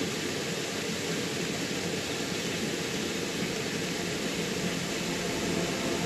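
Steady rushing of a small creek waterfall mixed with rain falling on the water.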